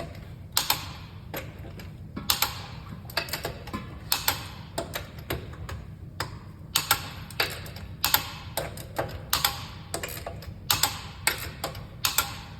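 Hand torque wrench ratcheting as wheel lug nuts are tightened: sharp metallic clicks, often in quick pairs or small clusters, over a steady low hum.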